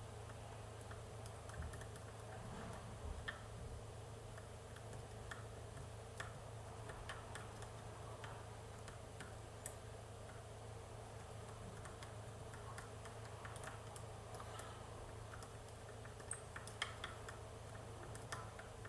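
Faint, irregular ticks and clicks of a lock pick working the spring-loaded pins of a Pollux 7 pin-tumbler lock held under tension, with a few sharper clicks about 3 s, 10 s and 17 s in. A low steady hum lies underneath.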